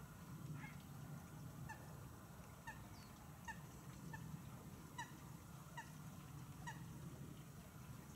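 Faint, distant geese honking: a series of short, slightly rising calls, about one a second, over a low steady hum.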